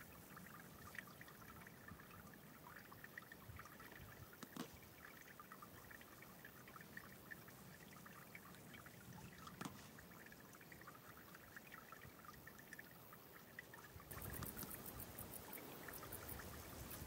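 Near silence: faint outdoor ambience with a thin trickle of water and small high chirps scattered through it. About fourteen seconds in, a louder, quick rustling starts as pipe grass stalks are pulled by hand.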